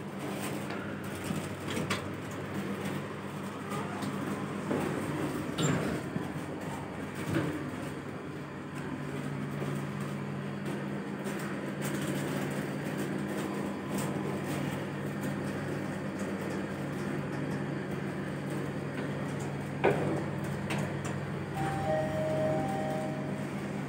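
Inside an OTIS machine-room-less traction lift car: the car doors close with a few clunks, then the car travels with a steady low hum. A clunk comes as it stops, about twenty seconds in. Near the end a two-note arrival chime sounds, a higher note then a lower one.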